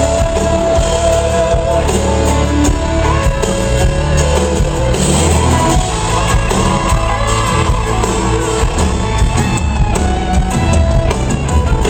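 Live country band playing an instrumental passage of a song, with steady drums and bass under sustained melody lines.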